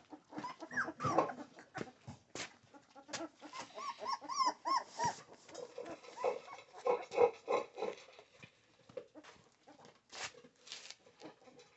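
Young American Pit Bull Terrier puppies squealing and whining: a string of short cries that rise and fall, thickest in the middle. Scattered knocks and rustling come from the whelping box as its mat is changed.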